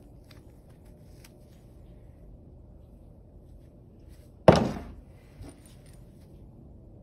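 A single loud clunk of a part or tool knocked down on a wooden workbench, with a brief rattling tail, then a lighter knock about a second later; faint handling clicks come before it.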